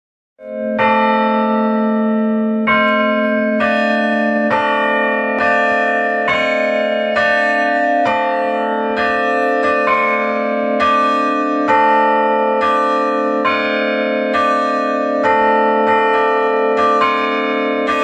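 A set of fixed monastery bells rung by pulling on ropes tied to their clappers, chiming together in a steady pattern of about one stroke a second. A low bell rings on beneath the higher bells throughout.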